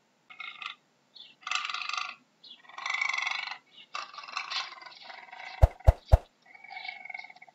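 Puma giving a series of short calls, roughly one a second. Near the end come three sharp clicks in quick succession, the loudest sounds here, from a subscribe-button sound effect.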